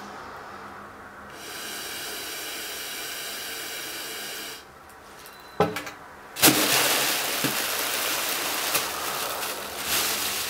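Steady hiss of air, then a few sharp clicks and, about six seconds in, a loud crackling rustle of a thin plastic carrier bag as it collapses and is pressed flat by hand.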